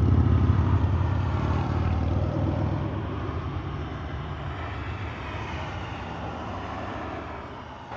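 A vehicle passing by: a low engine rumble and noise, loudest at the start and then slowly fading away.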